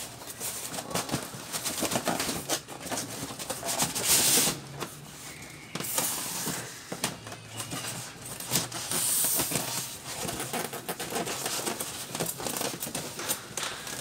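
A cardboard box and its polystyrene foam packing being handled and unpacked: irregular rustling, scraping and knocking, with louder bursts of rustling about four and nine seconds in.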